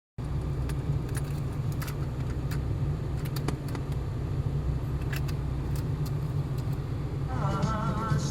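A vehicle engine running steadily, with irregular sharp clicks and rattles over its low hum. This is the abnormal noise the owner had expected to hear. Music comes in near the end.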